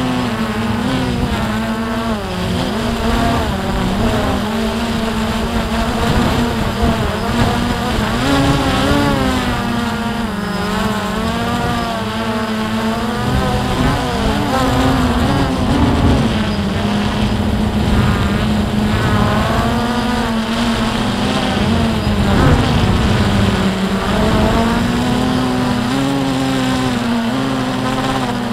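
Multirotor drone's motors and propellers buzzing in flight, their pitch wavering up and down as the drone manoeuvres.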